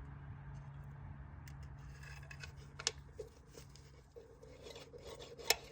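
Small metal parts scraping, rubbing and clicking as a lubed cam plate plunger and spring are pushed into a motorcycle gearbox casing. Two sharp metallic clicks stand out, the louder one near the end, over a steady low hum.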